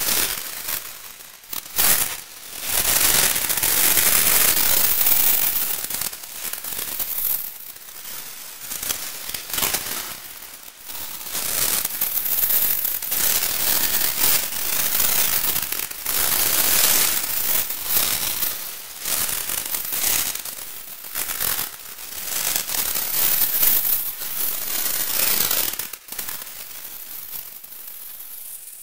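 Electroacoustic tape music: a dense, crackling, hissing noise texture full of sharp clicks, mostly high in pitch. It swells and fades in waves a few seconds long.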